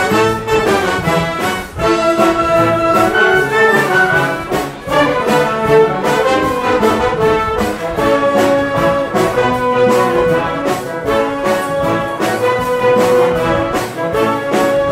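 Wind band of clarinets, saxophones, trumpets, trombones and tubas playing a medley of Portuguese popular tunes, with the brass to the fore over a steady percussion beat.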